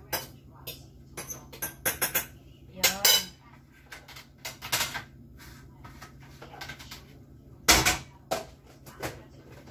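Dishes and cutlery clattering and clinking on a kitchen counter as plates and utensils are handled, with a scrape about three seconds in and a louder clatter about eight seconds in.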